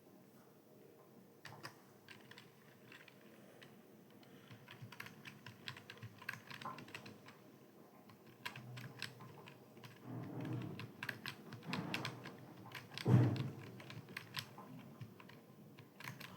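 Typing on a computer keyboard: quick, irregular keystroke clicks that start about a second and a half in and grow busier. There is one louder knock about two-thirds of the way through.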